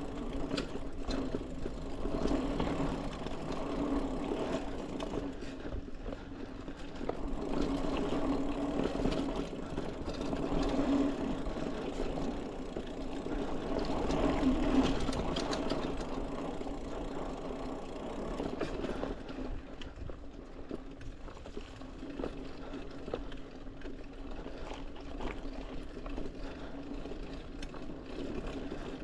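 Mountain bike riding along a dirt singletrack: a steady whirring hum that grows louder and then eases off as the speed changes, with light clicks and rattles over bumps in the trail.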